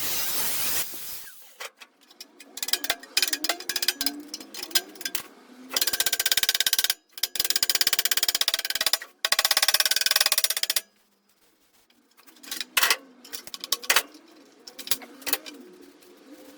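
A hammer beating sheet steel over a form to shape a seat pan, with scattered blows and three fast runs of rapid strikes in the middle. A rasping tool sound stops about a second in.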